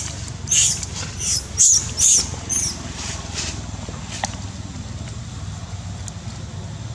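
Baby macaque screaming: a run of short, shrill, high-pitched squeals, about six in the first three and a half seconds, then it falls quiet. A steady low rumble runs underneath.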